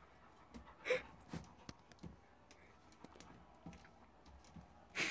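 A dog's claws clicking and scratching at a wooden lattice baby gate as it tries to get through: scattered light taps, one louder about a second in.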